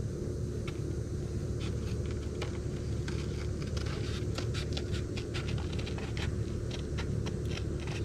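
Snips cutting through gasket material: a run of small crisp snips, uneven in spacing, over a steady low hum.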